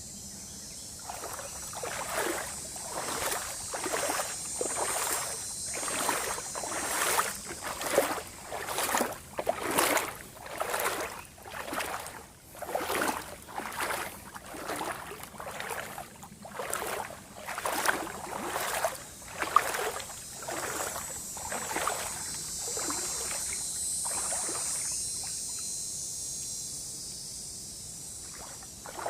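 Footsteps wading through shallow swamp water, one sloshing splash about every second, stopping about 22 seconds in. A steady high hiss runs underneath throughout.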